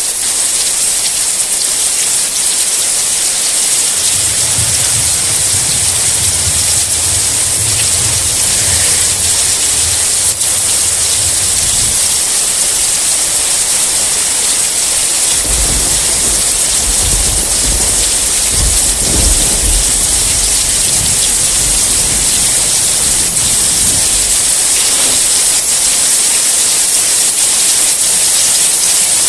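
Steady rain hissing, with two long low rolls of thunder under it: one from about four to twelve seconds in, and a deeper one from about fifteen to twenty-five seconds in.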